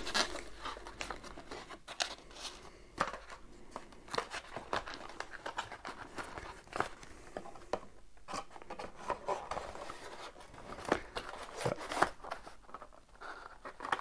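A cardboard product box and its insert tray being handled and fitted back together, with irregular small clicks, taps and rustles.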